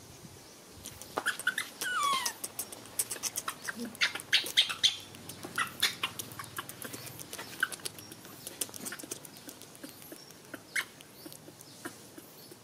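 A string of short, high-pitched animal squeaks and squeals, many in quick succession, with one longer squeal falling in pitch about two seconds in; they thin out towards the end.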